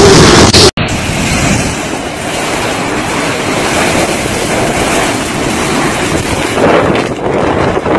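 Strong wind blowing hard across the microphone, steady and noisy, after a sudden cut about a second in.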